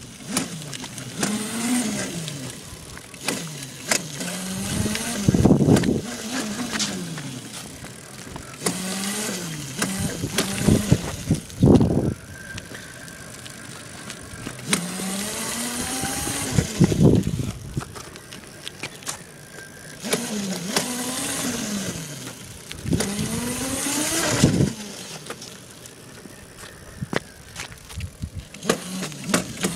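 A child's small electric mini-moped scooter, its motor whining up in pitch as it speeds up and back down as it slows, over and over. A few brief louder rumbles break in.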